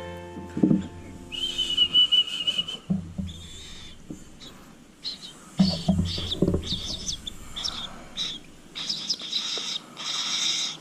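Baby cockatiel's raspy food-begging calls, a string of short hissy bursts repeated through the second half, while it is being hand-fed. A single held whistled note sounds about a second and a half in.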